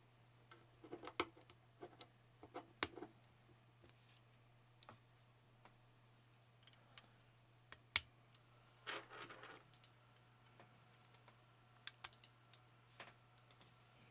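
Irregular small sharp clicks and taps of keyboard parts being handled and fitted during a custom keyboard build, with a brief scraping rustle about nine seconds in.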